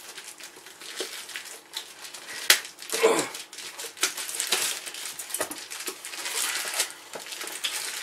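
Scissors snipping the string tied around a plastic-wrapped parcel, with clicks and knocks of the box being handled and crinkling of its plastic mailing wrap. A short falling voice-like sound about three seconds in.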